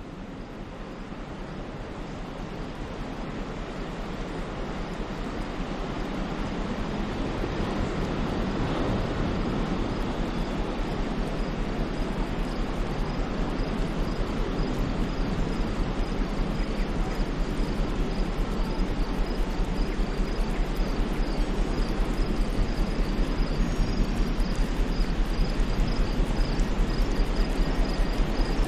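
Sea surf on a beach: a steady rushing wash, fading in over the first several seconds, with a low rumble underneath. From about halfway through, insects add a fast, even, high chirping.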